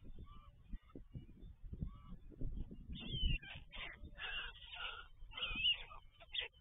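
White stork nestlings calling in the nest: a run of short, rough calls, a few a second, starting about three seconds in, with a low rumble underneath.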